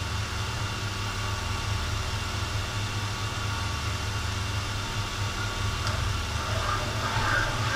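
Valve seat cutting machine running, its spindle turning a 45-degree cutter in an inlet valve seat of an A-series cylinder head: a steady low mechanical hum.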